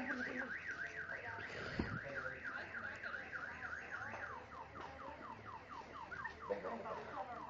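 Car alarm sounding: a fast warbling tone that switches, about four seconds in, to a run of quickly repeated falling sweeps.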